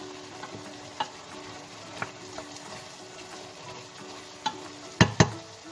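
A cooking utensil stirring simmering minced ox heart bopis in a pan, knocking against the pan about six times, with the two loudest knocks close together near the end.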